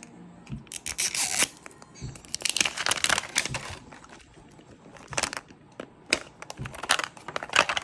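A crinkly plastic wrapper being torn and peeled off a Mini Brands capsule ball, crackling in irregular bursts.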